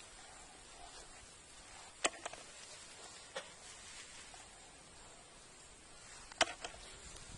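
Hands picking small fish out of a mosquito net lying on grass: a few sharp clicks and snaps over a faint hiss, a pair about two seconds in, one more at three and a half seconds, and a pair near the end.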